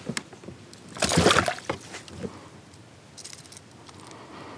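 Water sloshing and splashing at a kayak's side as a largemouth bass is lifted out of a landing net: one loud splash about a second in, then a few light knocks.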